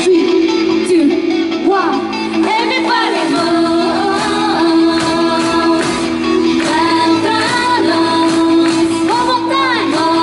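Upbeat Japanese pop song with female group vocals over a steady backing track.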